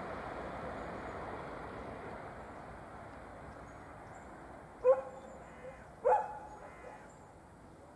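A dog barks twice, a little over a second apart, about five seconds in. Underneath, the rushing noise of a passing train fades away.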